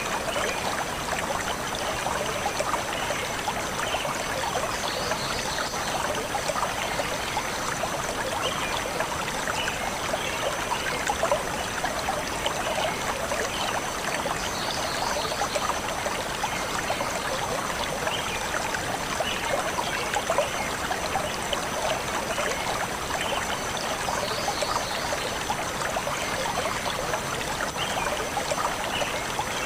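A small stream flowing steadily over stones, trickling and splashing without pause. Short high bird chirps come through about three times, roughly every ten seconds.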